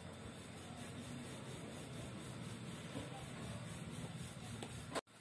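Wooden rolling pin rolling out a flour-dusted spinach paratha on a wooden board: a soft, steady rubbing that cuts out abruptly near the end.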